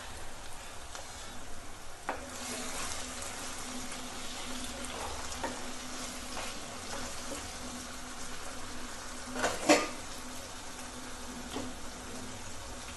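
Tomatoes, onions and green chillies frying in oil in a non-stick kadai with a steady sizzle, stirred with a wooden spatula that scrapes and clicks against the pan. Two sharper knocks come about nine and a half seconds in.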